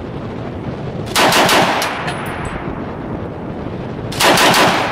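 Browning Automatic Rifle (.30-06) firing two short bursts on its slow automatic rate, a few shots each, about a second in and again about three seconds later.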